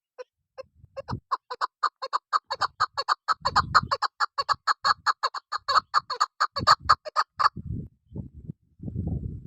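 Chukar partridge (chakor) calling: single clucks build into a rapid run of sharp repeated notes, about six or seven a second, which stops abruptly about two seconds before the end. Low rumbling noise comes in patches, mostly in the last two seconds.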